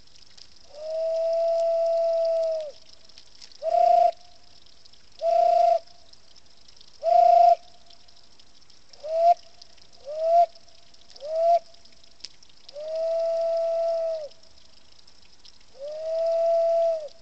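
Cupped-hands whistle: a man blowing into his clasped hands to make a pure whistled tone. Nine notes at one steady pitch, each dipping at its end: a long note, six short ones, then two more long ones.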